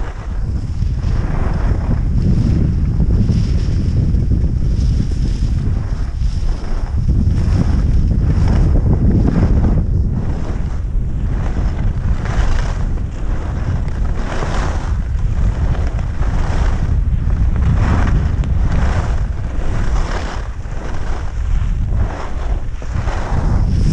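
Wind buffeting the microphone of a camera carried by a skier skiing downhill, a loud steady low rumble. Over it, skis hiss and scrape on the snow about once a second, with each turn.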